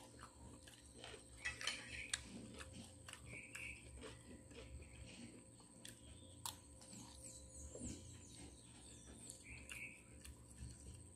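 Faint eating sounds: chewing and mouth noises, with a metal spoon clicking against a plate and teeth. One sharp click comes about six and a half seconds in.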